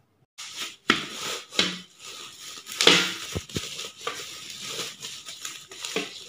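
Plastic bubble wrap crinkling and crackling as hands handle it, with sharper crackles about a second in, again at one and a half seconds, and loudest near three seconds.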